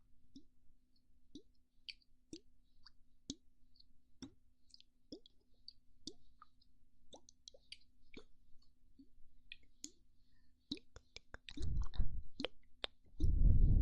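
ASMR mouth sounds: scattered soft wet clicks and pops close to the microphone, then near the end two loud bursts of breath blown straight onto the microphone.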